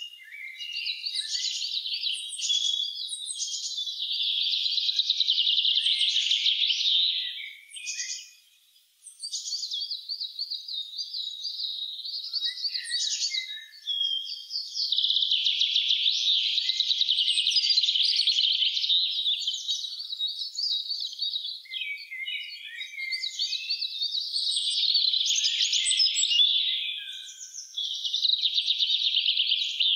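Songbirds singing in a woodland chorus: long, fast-trilling phrases of several seconds each, overlapping with shorter chirps and calls, with a brief lull about a third of the way in.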